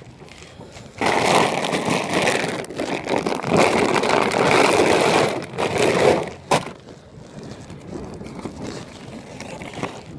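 Shopping cart wheels rolling and rattling across car park pavement, a loud scraping rumble that stops about six and a half seconds in.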